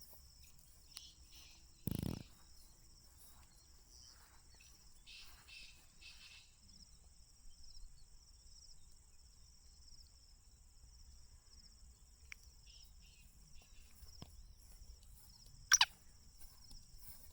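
Quiet outdoor background with a steady high-pitched insect drone, like crickets, and faint scattered chirps. There is a dull knock about two seconds in and one short falling call near the end.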